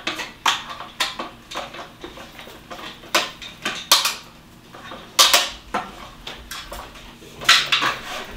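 Hard plastic parts knocking and clicking together as a long tube is worked into the base of a 4moms baby product: a scatter of sharp clacks, the loudest in the middle and near the end.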